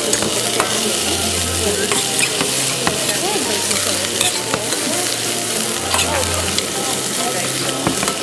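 Food frying and sizzling in hot sesame oil in a pan, stirred with a utensil that clicks and scrapes against the pan now and then. A low hum runs underneath and swells briefly twice.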